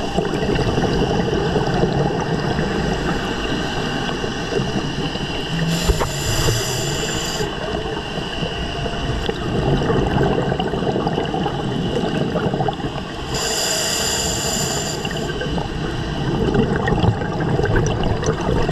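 Underwater ambience picked up through a diving camera: a steady rumbling hiss with a few constant tones. Twice, about six and thirteen seconds in, a scuba diver's regulator exhales, a hissing rush of bubbles lasting about a second and a half.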